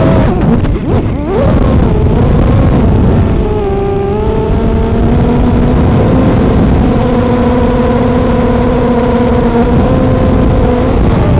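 Brushless T-Motor (Tiger) motors and propellers of an FPV racing quadcopter whining loudly in flight. The pitch follows the throttle: it drops and then sweeps sharply up in the first second and a half, dips lower around three to four seconds in, then holds steady.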